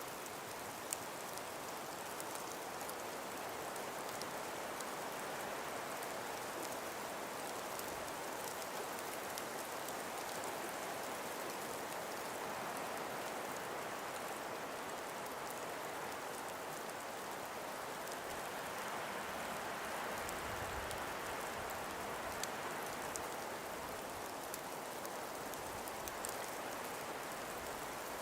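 Calm breeze blowing through frost- and ice-covered forest trees: a steady, even hiss with scattered faint ticks and a brief low rumble about two-thirds of the way through.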